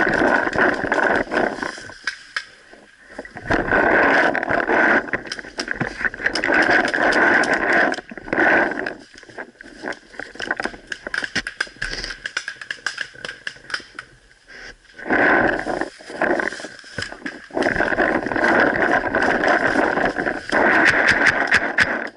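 Paintball marker firing, many sharp shots in quick runs, between stretches of louder rushing noise.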